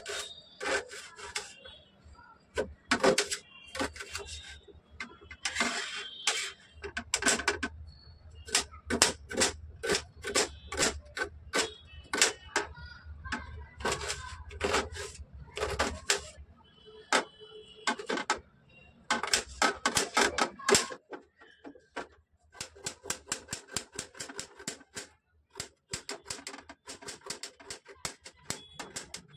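Small kitchen knife chopping a red onion against a tablecloth-covered surface: a long run of sharp taps in quick bursts with short pauses. After a brief gap about three-quarters of the way in, quicker, lighter taps follow as the knife slices a carrot into rounds.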